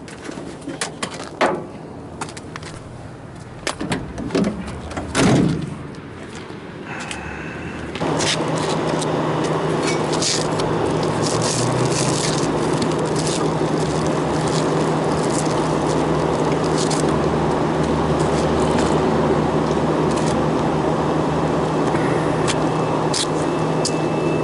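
Clanks, clicks and scraping of gear being handled. About eight seconds in, a steady machine noise with a low hum starts suddenly and runs on evenly.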